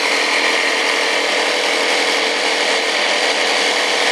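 Small homemade electric air pump running steadily, with a constant whine.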